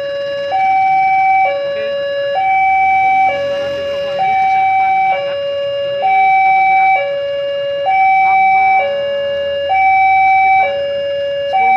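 Electronic two-tone warning alarm of a railway level crossing, switching steadily between a lower and a higher tone about once a second, signalling an approaching train.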